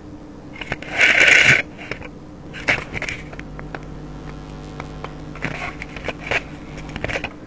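Rustling and crackling noises with a loud burst of noise about a second in and scattered sharp clicks, over a low steady hum.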